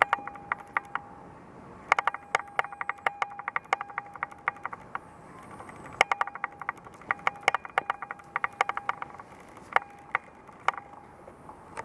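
Bursts of sharp clicks and taps with a brief metallic ring, several a second, from pets moving about inside a cage.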